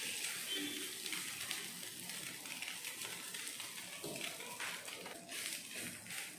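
Jowar (sorghum flour) adai dough sizzling on a hot dosa griddle as it is patted out flat by hand, a steady hiss with a few soft pats.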